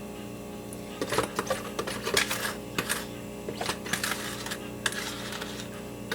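A kitchen utensil scraping and tapping against a mixing bowl, getting the last of the corn pudding batter out: a run of irregular clicks and scrapes, over a steady low hum.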